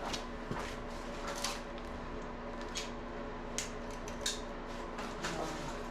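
Metal hand tools clinking against each other in a toolbox as someone rummages through it, about seven short separate clinks over a steady background hum.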